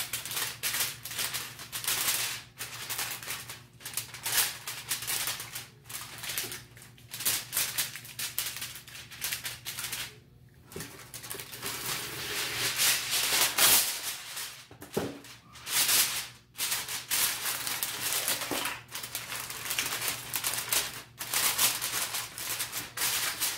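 Aluminum foil pulled off the roll, torn off and crinkled as it is pressed down to cover a pan, in irregular bursts of crackling with a short pause about ten seconds in.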